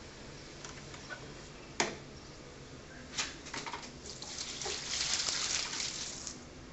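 Water pouring or splashing for about two seconds, after one sharp click and a few lighter clicks of parts being handled.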